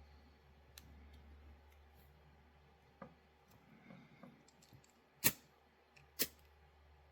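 Faint scattered clicks of hands working small parts, then two sharp, louder clicks about a second apart near the end, over a low steady hum.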